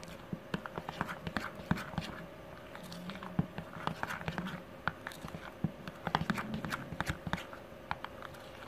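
Metal spoon stirring thick, wet cake batter in a small bowl: irregular scraping and clicking against the bowl with soft squelching.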